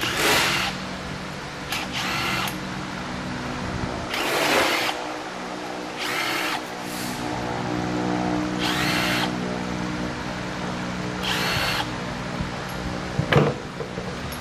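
Cordless drill-driver spinning out bolts on the front of a ZF 6HP-28X automatic gearbox in short whirring bursts, about six of them a couple of seconds apart. A couple of sharp clicks come near the end.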